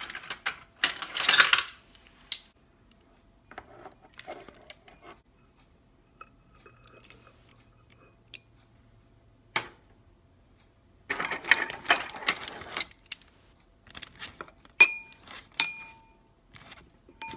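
A plastic spoon stirring flaxseed meal and water in a ceramic bowl, scraping and knocking against the bowl in short spells with quiet pauses between. A few clear ringing clinks come near the end.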